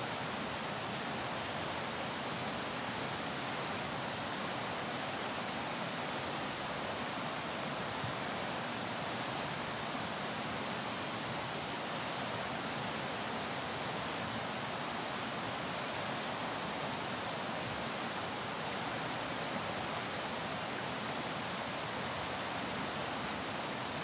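River water flowing over rocks and through small rapids: a steady, even rush of water.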